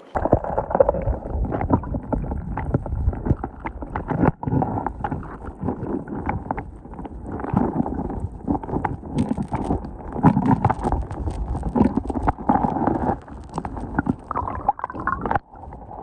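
Stream water heard through a camera held underwater: loud gurgling and bubbling with many sharp knocks, starting suddenly.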